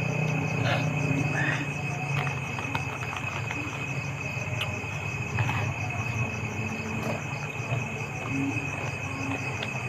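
Night insects calling: a steady high-pitched trill together with a fast, even pulsing chirp higher up, over a low steady hum.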